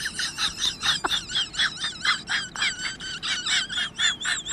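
High-pitched comic laughter sound effect: a rapid string of squeaky 'ha' pulses, about four a second, turning into a warbling, wavering cackle near the end.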